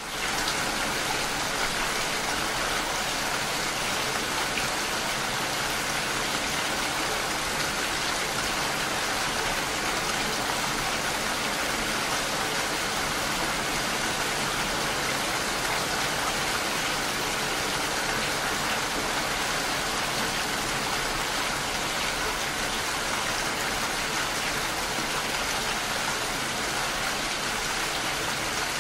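Steady rain falling, an even, unbroken hiss of pouring rain.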